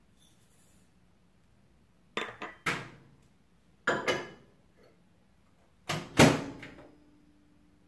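Microwave oven handled: several sharp clunks as its door is worked and the plate set inside, the loudest a door shut about six seconds in, after which the oven starts running with a low steady hum. A faint hiss of sugar poured from a measuring cup comes at the very start.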